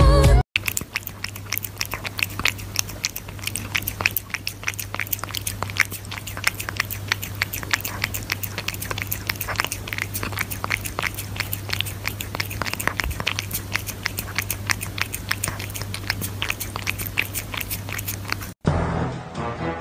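A cat lapping liquid from a bowl close to the microphone: a quick, even run of small wet clicks from its tongue, over a faint steady hum.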